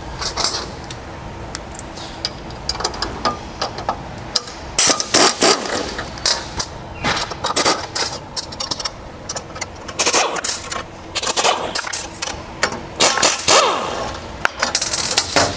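Pneumatic (air-powered) wrench rattling in a series of short bursts as it loosens the bolts on a steel hose-reel bracket.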